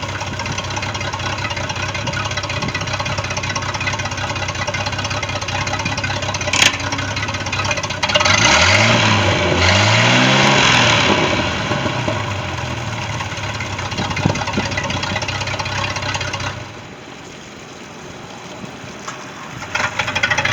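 4.3 L MerCruiser V6 marine engine running steadily at idle after a thermostat replacement, with two quick throttle blips about a third of the way in where the pitch rises and falls. Near the end the engine sound drops away for a few seconds, then comes back up.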